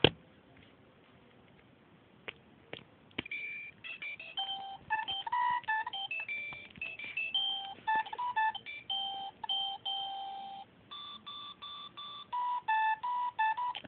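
Circuit-bent talking alarm clock's sound chip playing a beeping electronic tune of short notes at shifting pitches, starting about three seconds in after a sharp click and a few ticks. Near the end it plays a run of evenly repeated notes.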